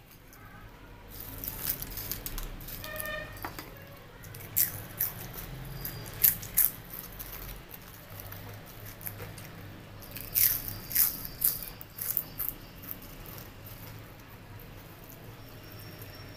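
Crunching of crisp fried potato chips, close up, in two clusters of sharp crackles about four and ten seconds in, between softer squishing of rice being mixed by hand.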